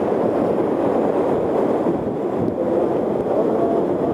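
Steady, loud wind rushing over the microphone, as when riding a motorcycle at speed.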